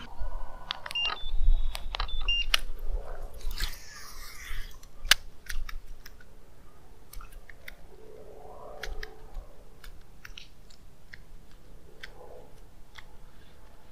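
Fishing rod and baitcasting reel being handled in a boat while a lure snagged on a mangrove branch is worked free. Irregular light clicks throughout, with heavier knocks and bumps and a brief high squeak in the first few seconds.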